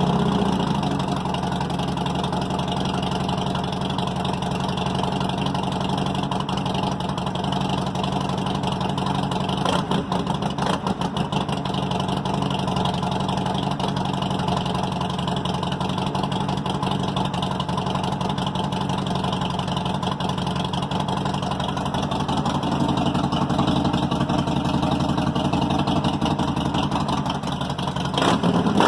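Harley-Davidson Sportster Iron 883's V-twin on slip-on mufflers idling steadily on its first start after a new open air cleaner was fitted. It runs a little louder over the last several seconds, and the engine note rises sharply at the very end.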